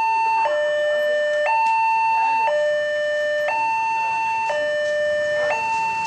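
Railway level-crossing warning siren from a horn loudspeaker on the crossing post, sounding a two-tone hi-lo pattern. A higher and a lower tone swap about once a second, warning of an approaching train while the barriers come down.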